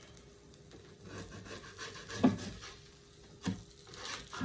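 A spatula scraping and rubbing against a pan while prying up a crisped cheese chip, with two sharp knocks, the louder one a little past two seconds in.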